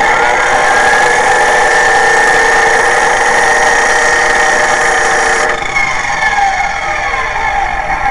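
Electric abrasive-wheel grinder running at full speed with a steady whine while a cut plastic shotgun-shell hull is held to the wheel to dress its rough edge. About five and a half seconds in the motor is switched off and the whine falls steadily in pitch as the wheel spins down.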